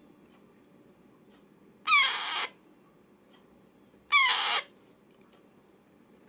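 Young Alexandrine parakeet giving two loud, harsh squawks about two seconds apart. Each lasts about half a second and starts with a quick downward slide in pitch.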